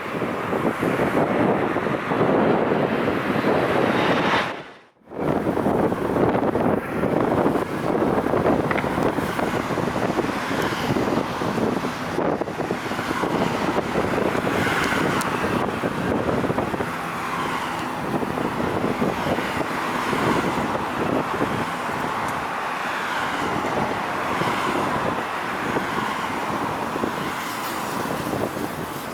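Strong wind buffeting the microphone over a steady background rumble. The sound drops out briefly about five seconds in.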